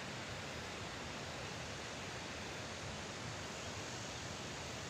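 Steady rush of water pouring through a dam's open release gates and churning into spray, as the reservoir discharges water to ease its pressure.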